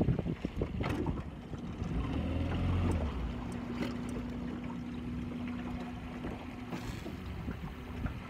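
Open-air sound on a small fishing boat: wind on the microphone, scattered knocks and clatter, and a steady low hum lasting about four seconds in the middle.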